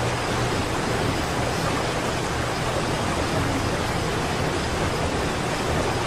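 Steady, unbroken rushing of a waterfall.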